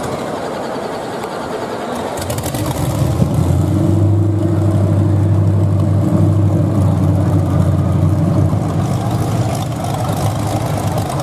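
Demolition derby car's engine, exhaust stacks open through the hood, running hard under throttle as the car drives. It comes up strongly about two seconds in, holds steady, and eases off about three seconds before the end.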